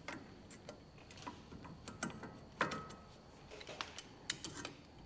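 Small metal parts clicking and clinking as pliers pull tapered collets off the wheel hub studs, in scattered irregular ticks. A louder clink about two and a half seconds in rings briefly.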